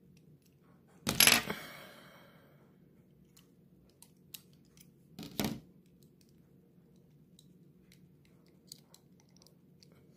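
A small metal object clinks sharply against a hard tabletop about a second in, with a short ring after it. A softer double knock follows about four seconds later. Light clicks of small die-cast model car parts being handled come in between.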